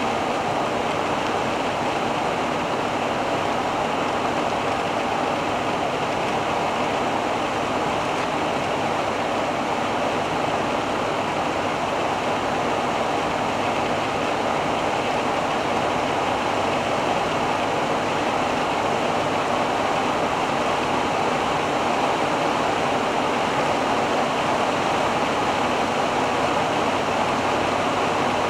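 Steady driving noise of a 1985 Hobby 600 motorhome on a Fiat Ducato base cruising at about 90 km/h: an even rushing of road and wind noise with a faint steady engine hum underneath.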